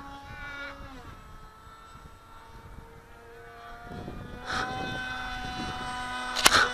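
Radio-controlled model delta-wing plane flying overhead, its motor and propeller giving a steady pitched drone. The drone drops in pitch and fades about a second in, then grows louder again from about four seconds. A short loud rush of noise comes near the end.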